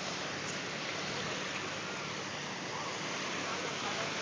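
Small waves lapping and washing onto a pebbly beach, a steady even wash of surf.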